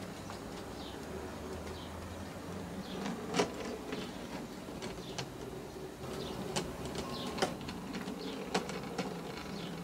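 OO gauge model tank locomotive running along the track: the small electric motor hums steadily while the wheels click sharply every second or so over the rail joints, the loudest click about three seconds in.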